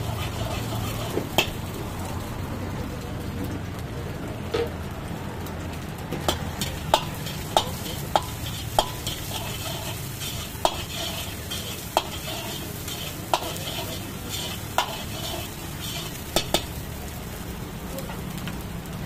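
Beaten eggs sizzling and frying in a large iron wok while a steel ladle stirs and scrapes them. The ladle clinks sharply against the wok about a dozen times, closest together between about six and nine seconds in.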